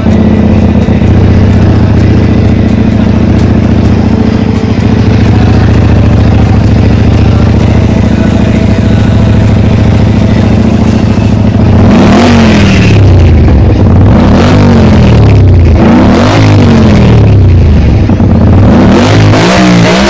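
Hyosung Comet GT V-twin motorcycle engine running through a homemade welded stainless-steel silencer. It idles steadily for about half the time, then is revved in about five quick blips, each rising and falling.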